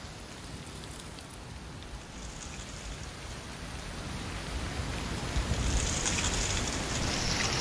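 Wind gusting through autumn trees, with dry leaves rustling and blowing. The gust builds from about halfway through, bringing more low wind rumble and louder leaf rustle near the end.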